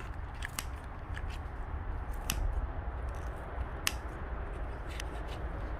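A few scattered sharp metal clicks and snips from kitchen utensils working on freshly smoked pork belly, over a steady low rumble.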